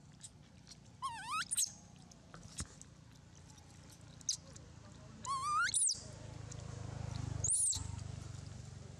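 Baby long-tailed macaque giving three high squealing calls, each sweeping sharply upward in pitch: about a second in, past five seconds, and a short one near the end. A low rumble swells under the last few seconds.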